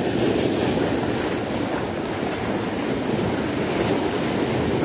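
Sea surf breaking and washing over the rocks: a steady rush of churning water.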